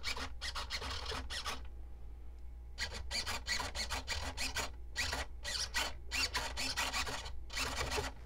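A hand tool rasping in quick repeated strokes, a short run, a pause of about a second, then a longer run.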